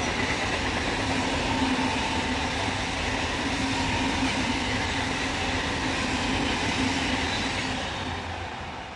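A passenger train rushing past at speed, its wheels running steadily over the rails, the noise dropping away near the end as it passes.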